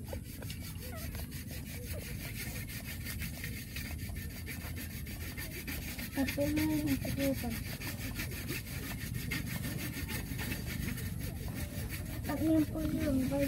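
Newborn puppies suckling at a mother dog's teats, a steady rapid wet smacking and rasping. Two short low voice-like murmurs, about six seconds in and near the end, rise above it.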